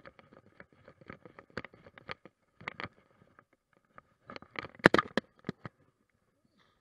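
Footsteps swishing through grass, about two a second, with the body-worn camera rubbing against clothing and gear. About five seconds in there is a loud cluster of knocks and scrapes as the camera bumps against padded gear, then the sound drops away almost to nothing.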